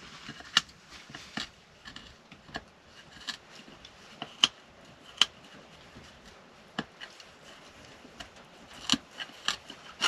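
A dog gnawing on a piece of wooden board: irregular sharp clicks and cracks of teeth on wood, with a few louder snaps.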